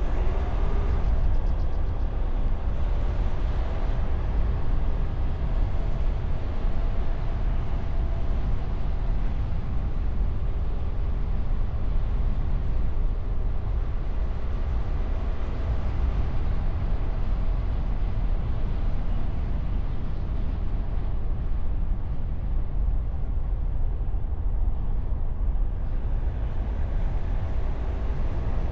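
A car driving along an open road, picked up by a camera on its bonnet: a steady low rumble of wind and road noise with a faint engine note over it.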